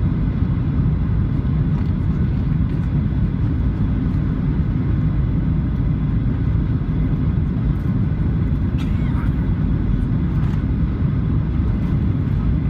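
Steady low rumble inside the economy cabin of a Boeing 737-700 in flight: engine and airflow noise holding a constant level.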